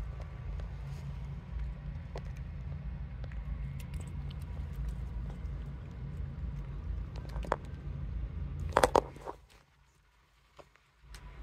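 Cats eating wet food from plastic dishes: small clicks of licking and chewing over a steady low hum. A sharp cluster of louder clicks comes about nine seconds in, then near silence for a moment.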